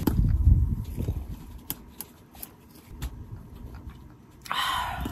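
Low rumbling handling noise as a drink is taken from a wooden cup, then scattered sharp clicks, and a breathy exhaled sigh near the end.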